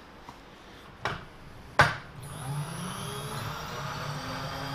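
Two sharp knocks about a second apart, then a machine motor starts and runs with a steady hum.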